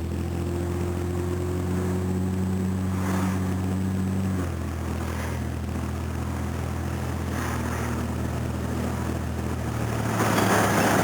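Jaguar XJ6 Series 3 engine running loud while driving, its exhaust missing the rear muffler and cut off short behind the flange. The engine note climbs slowly, drops suddenly about four seconds in and then holds steady. A louder rushing noise comes in near the end.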